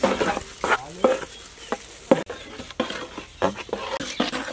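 A metal spoon stirring thick pancake batter in a large aluminium pot, with irregular scrapes and knocks against the pot.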